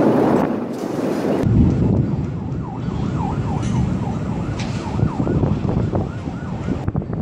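A rush of wind on the microphone that cuts off about a second and a half in. Then an emergency-vehicle siren wails in a fast up-and-down yelp, about three cycles a second, over a steady low rumble of wind and city noise.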